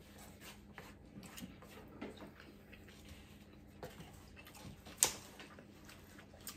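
Quiet eating sounds: scattered soft clicks and taps of utensils against plates, with mouth noises of chewing. One sharper click about five seconds in stands out.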